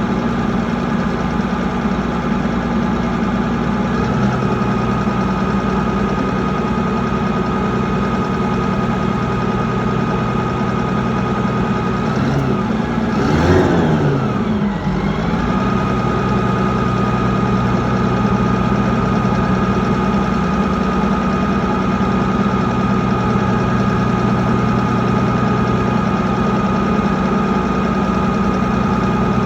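Mitsubishi 6M60 six-cylinder diesel engine idling steadily, revved up and back down once about halfway through; the engine has a misfire that makes it shake.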